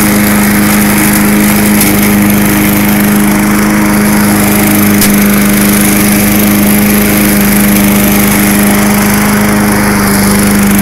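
MTD Lawn Chief push mower's 3.75 hp Tecumseh engine running steadily and loudly at full speed as the mower is pushed over dry leaves. It runs smoothly with no sputter after being primed.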